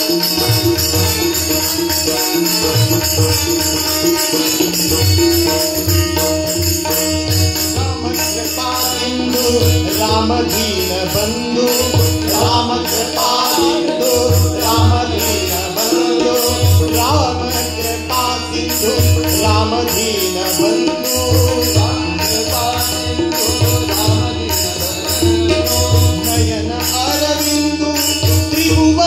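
Devotional bhajan: two tabla sets playing a steady rhythm over a harmonium's held tones, with voices singing the melody from several seconds in.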